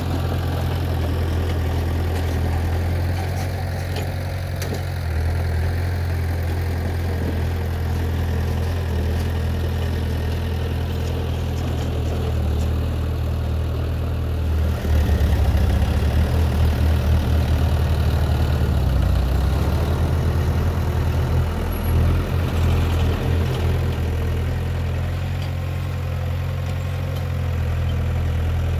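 Heavy construction machinery's diesel engine running steadily at a low, even rumble. It grows louder and pulses unevenly for several seconds past the middle as the engine works harder, then settles back to a steady run.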